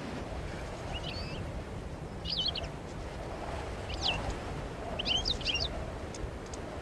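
European goldfinch calling: four brief groups of high, quickly gliding chirps a second or so apart, over a low steady background rumble.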